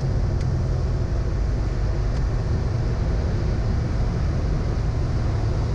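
Steady drone of a turbocharged Cessna 210's six-cylinder engine and propeller, mixed with airflow noise, heard inside the cabin on final approach with the landing gear down.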